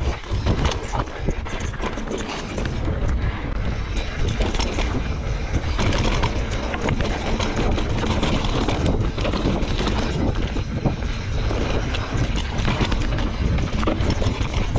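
Santa Cruz Megatower full-suspension mountain bike riding a rocky dirt trail: tyres rolling over dirt and stone with frequent small clicks and rattles from the bike. Steady wind rumble on the microphone underneath.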